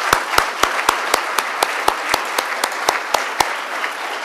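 Audience applauding, with one person clapping close to the microphone in a steady beat of about four claps a second that stops about three and a half seconds in; the rest of the applause thins out near the end.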